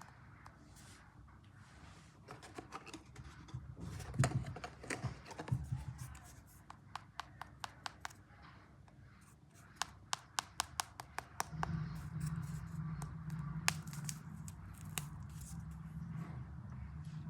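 Ice cream packaging handled and torn open by hand: crinkling, scratching and sharp clicks, with a quick run of ticks about ten seconds in. A steady low hum joins about two-thirds of the way through.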